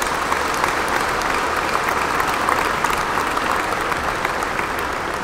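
Large audience applauding, a dense steady clatter of many hands clapping that eases slightly near the end.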